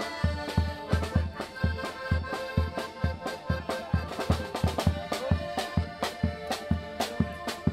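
An accordion band playing a tune together while walking, several accordions sounding held chords and melody over a steady low beat of about three beats a second.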